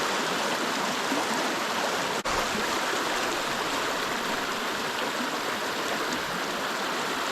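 River water rushing steadily, the current running high with snowmelt. There is a brief dropout about two seconds in.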